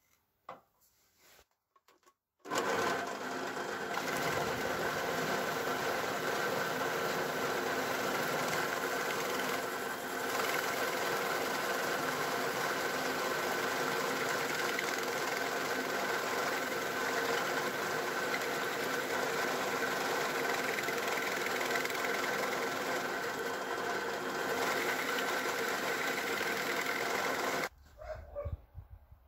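Electric drill boring a 40 mm hole in a wooden beam with a Forstner bit: a steady motor whine over the bit's cutting noise. It starts about two and a half seconds in and cuts off abruptly near the end.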